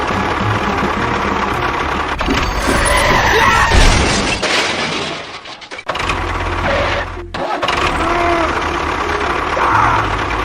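An engine running, fading out about four and a half seconds in and starting up again about a second and a half later.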